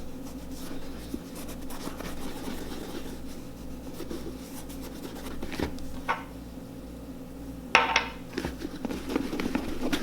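Soft scratchy rubbing as boot cream is worked into the leather of a Red Wing boot in circular motions. A sharper knock comes about eight seconds in, with a smaller one shortly before it.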